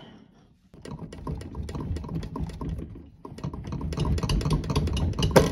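Hands handling wires and plastic connectors under a dishwasher: a dense run of small clicks and rattles in two stretches, with one sharper click near the end.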